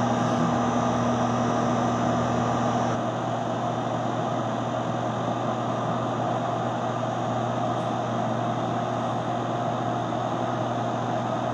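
Steady fan noise and electrical hum of the running PDP-12 minicomputer, with a constant low hum tone; a second hum tone drops out about three seconds in.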